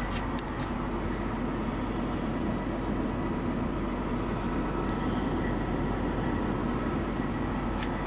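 Steady mechanical drone heard inside the passenger cabin of a 2004 GMC C5500 shuttle bus with its engine running, with a single light click about half a second in.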